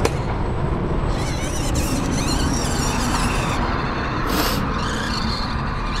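Axial SCX24 micro crawler's small electric motor and gears whining, the pitch wavering with the throttle, over a steady low rumble.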